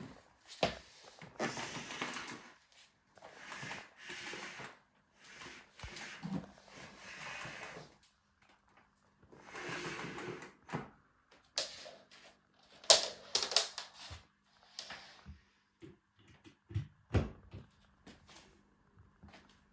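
Intermittent handling sounds: short rustling scrapes about a second long, then a run of sharp clicks and knocks from about twelve seconds in, with quiet gaps between. No steady motor sound.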